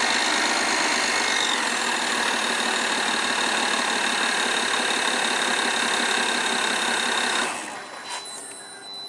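BMW N53 3.0-litre direct-injection straight-six running with a clatter from the rear of the engine, which a garage put down to the high-pressure injectors, a diagnosis the owner doubts. The engine sound drops away about seven and a half seconds in, followed by a single knock.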